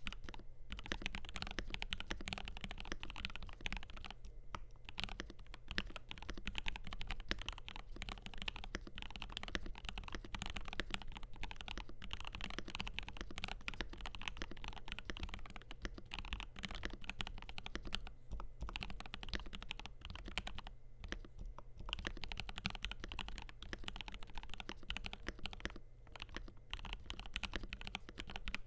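Continuous typing on a FiiO KB3 mechanical keyboard with lubed Gateron G Pro 3.0 Yellow linear switches, a stainless steel plate and JKDK keycaps: rapid, even keystrokes with a few brief pauses.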